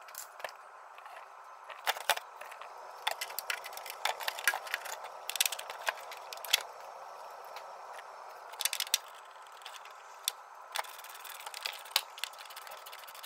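Irregular clicks, rattles and scrapes of a NOx sensor's wiring connector being plugged in and its harness pressed into plastic clips under a car, over a steady faint hum.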